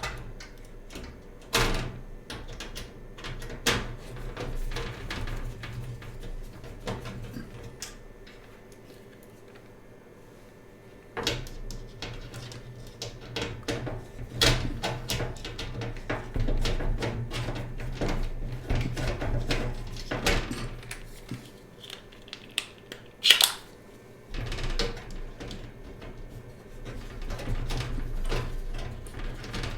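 Irregular clicks, taps and knocks of metal parts and small screws being handled while a desktop PC case is taken apart, with one sharp, louder click about three quarters of the way through.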